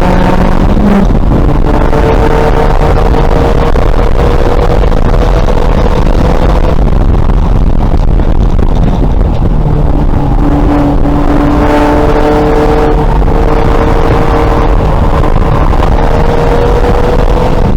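A 2000 VW Golf race car's engine running hard on track under heavy wind and road noise. Its note climbs slowly over long stretches and changes abruptly a few times, about a second in, near seven seconds and near twelve seconds.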